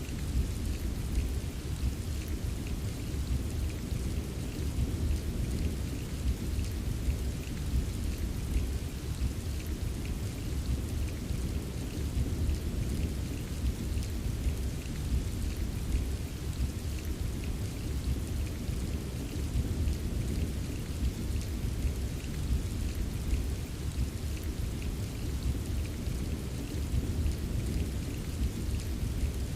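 Steady heavy rain: an even hiss of rainfall with a fine patter of drops and a constant low rumble beneath.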